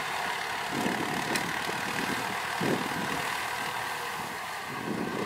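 Farm tractor's diesel engine running steadily under load while pulling a disc plough through dry soil.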